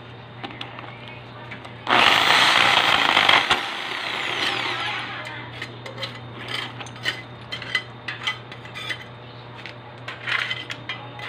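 Electric drill fitted with a masonry bit runs in a short burst about two seconds in, lasting about a second and a half, then winds down. Scattered light clicks and taps follow.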